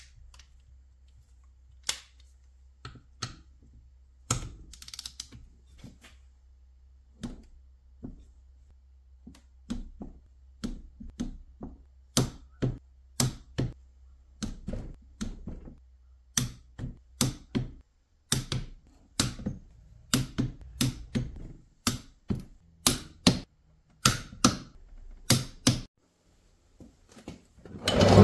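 Socket wrench tightening bolts on a Rotax 617 two-stroke engine: a long string of irregular sharp clicks and knocks, growing denser in the second half. A faint low hum underneath stops about two-thirds of the way through.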